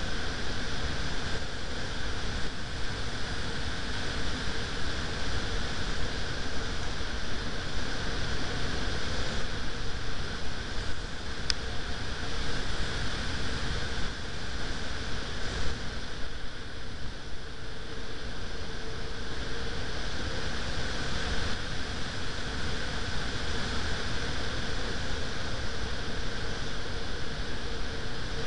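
Steady rushing wind noise on the microphone, with a faint steady hum underneath.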